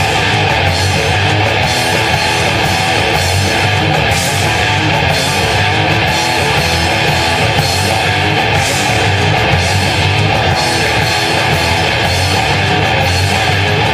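Heavy metal band playing loud and steady, with distorted electric guitars, bass and drums, and repeated cymbal crashes.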